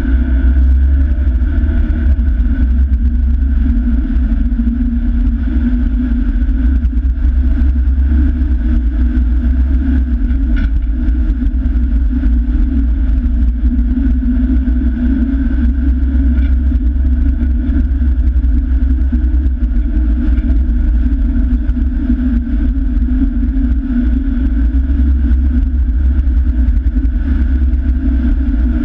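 Vehicle driving along an unsealed sandy track: a steady, unchanging low rumble.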